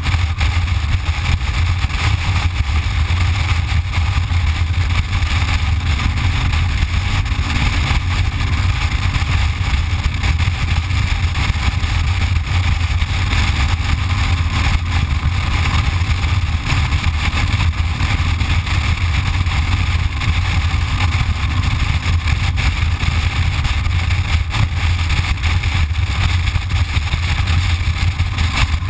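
Motorcycle cruising at highway speed, heard from a camera on its handlebars: a steady low engine rumble mixed with wind and road noise, without any change in speed.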